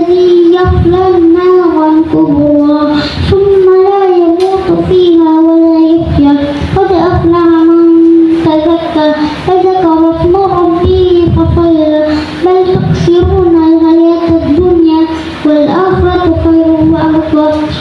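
A boy chanting the Qur'an in melodic tartil recitation, holding long notes with ornamented turns in pitch. He pauses briefly for breath a few times.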